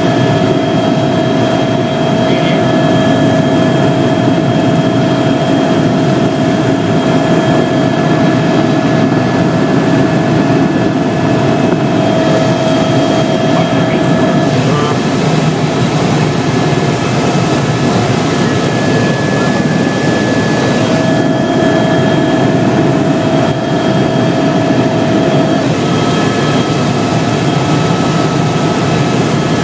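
Helicopter cabin noise in flight: a loud, steady engine and rotor drone with a few steady whining tones over it.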